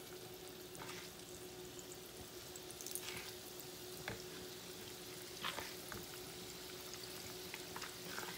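Moong dal bhallas frying in oil in a kadhai: a faint, steady sizzle and bubbling, with a few soft plops and splashes as balls of batter are dropped in by hand.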